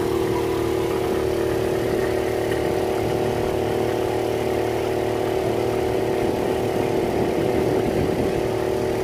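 The pontoon boat's modified outboard motor running steadily at an even speed, with a constant hum.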